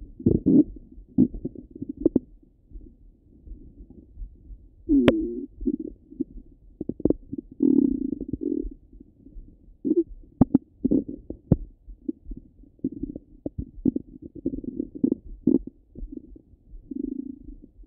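Stomach and bowel gurgles heard through a Littmann stethoscope pressed to the belly. They come as irregular bubbling rumbles and quick pops, with a sharp click about five seconds in.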